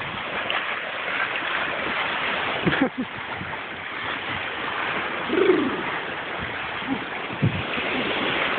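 Sea surf washing and breaking against a rocky shoreline, a steady rushing hiss. A few short, low-pitched sounds stand out over it, the loudest about halfway through.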